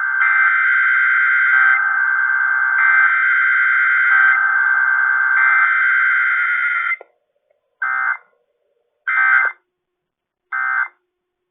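Emergency Alert System tones broadcast over AM radio. A loud electronic tone with a warbling, shifting pattern runs for about seven seconds and stops. Then come three short bursts of digital data tones, each under half a second and about a second apart.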